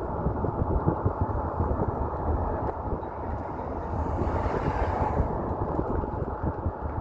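Road and engine noise inside a moving car: a steady low rumble, with a brief swell of hiss about four and a half seconds in.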